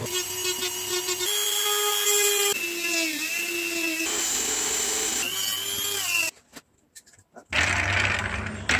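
Small power tools working plywood in quick succession: a rotary tool with a cut-off disc and a cordless drill spinning a wooden wheel against sandpaper, each a steady whine at a different pitch that sags briefly under load. After a short gap there is a rush of noise near the end.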